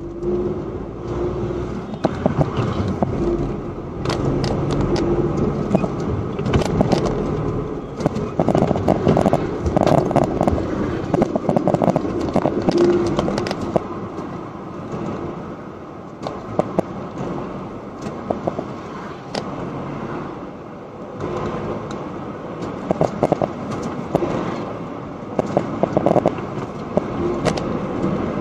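A car driving, its engine and road noise heard from inside the cabin, with frequent short clicks and crackles over the steady rumble.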